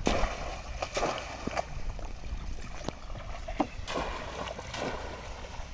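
Shallow water splashing and sloshing in irregular short strokes as a bamboo polo fish trap is worked in the water and a hand plunges in beside the boat.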